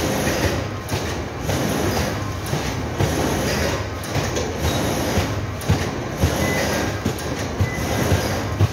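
Loud, steady running noise of factory machinery in a corrugated cardboard box plant, with many irregular knocks and clatters throughout.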